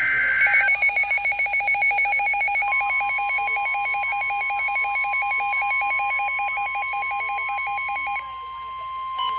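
Emergency Alert System broadcast on NOAA Weather Radio. The last burst of the SAME data header ends within the first second. A fast warbling electronic alarm follows and runs until about 8 seconds in. The steady 1050 Hz attention tone comes in a few seconds in and is left sounding alone near the end.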